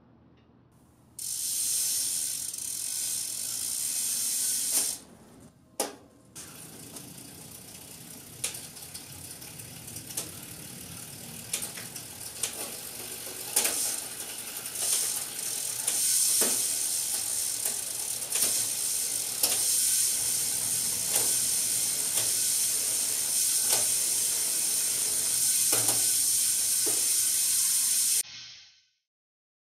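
Bicycle drivetrain turning in a repair stand: the chain runs over the rear cassette and the rear hub's freewheel ratchets in a steady whirr, with scattered sharp clicks. It pauses briefly about five seconds in, then runs on and stops suddenly near the end.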